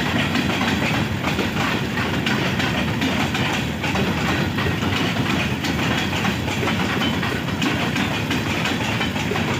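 Freight wagons of a train rolling past at speed: a steady rumble and rattle of steel wheels on the track, with frequent clicks at the rail joints.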